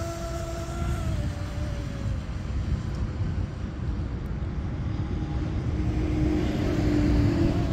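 Whine of an RC mono speed boat's twin 2200kV brushless electric motors at speed. The pitch falls and fades within the first couple of seconds as the boat runs away, then returns, louder, near the end. A steady low rumble of wind on the microphone runs under it.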